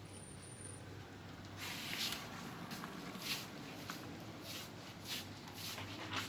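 HO scale model train running, with a steady low hum. From about one and a half seconds in, short hissing beats come about twice a second.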